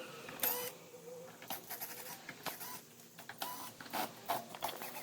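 Screwdriver taking screws out of a TV's rear housing: irregular clicks and short stretches of whirring.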